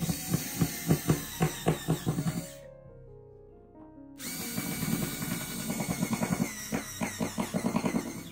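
Cordless drill-driver driving screws into a white furniture panel, in two runs with a quick, regular pulsing: one of about two and a half seconds, then a longer one starting about four seconds in.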